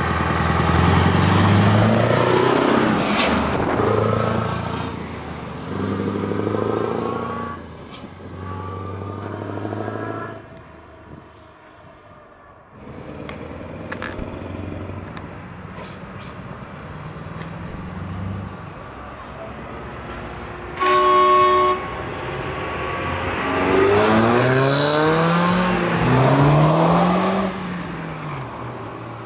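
Heavy trucks' diesel engines running and revving as they arrive. About two-thirds of the way through a horn sounds once for about a second, and near the end an engine is revved up and down twice.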